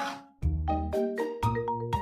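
Background music: a bright melody of short struck notes over a steady bass beat.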